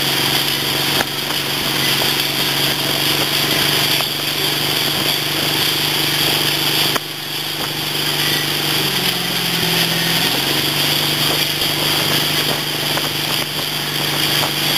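MasterCraft tow boat's inboard engine running steadily under way, over a constant rush of wind and water. About two-thirds of the way through, the engine's pitch briefly sags and then comes back up.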